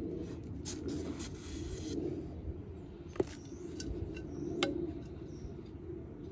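A flat metal blade scraping and stirring loose potting soil in a glazed ceramic pot, with a few short scrapes and two sharp clicks, over a steady low background noise.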